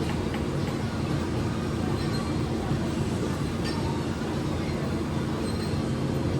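Steady low rumble of gym background noise with a constant hum and a few faint metallic clinks, heard during a set on the weights.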